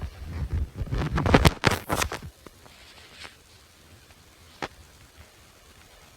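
Handling noise: a quick cluster of taps, clicks and rustling for about two seconds, then two single clicks in the quiet that follows.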